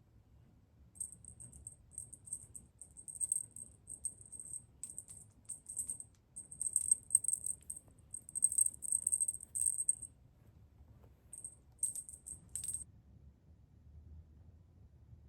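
Light, high-pitched metallic jingling, like a small bell being shaken, in irregular bursts for about twelve seconds, stopping shortly before the end.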